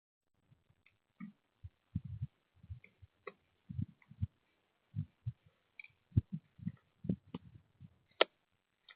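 Irregular soft thumps and taps, several a second, with a few faint short chirps, from birds landing and pecking at a feeder. Picked up by a trail camera's microphone, which cuts off the highest sounds.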